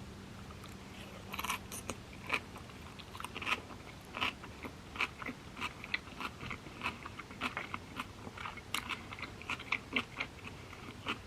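A person chewing a mouthful of sushi, a cucumber roll, close to the microphone, with quick irregular crunches and clicks.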